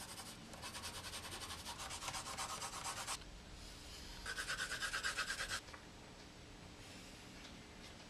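Colored pencil scribbling back and forth on paper in rapid strokes, shading in a drawing. It comes in two spells, the second one louder, with softer rubbing between.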